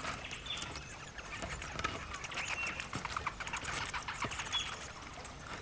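Spectacled flying foxes scrambling through fig foliage: a busy patter of rustling and crackling, with a few brief shrill squeaks.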